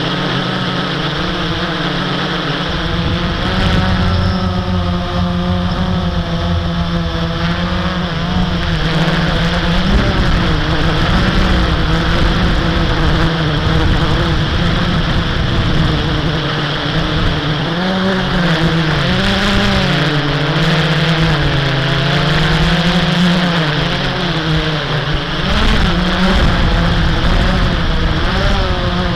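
Blade 350 QX quadcopter's brushless motors and propellers whining steadily in flight, the pitch wavering up and down as the throttle changes.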